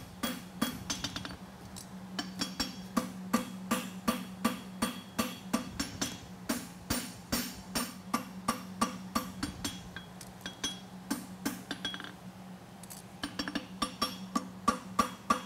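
Hand hammer striking red-hot steel on an anvil in a steady run of ringing blows, about two to three a second, as the head of a pair of hot fitting tongs is forged over the anvil horn. The blows stop for a couple of seconds about two-thirds through, then start again.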